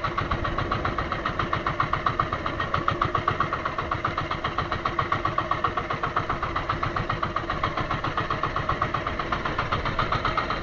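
Small fishing boat's engine running steadily at low speed, with a rapid, even beat.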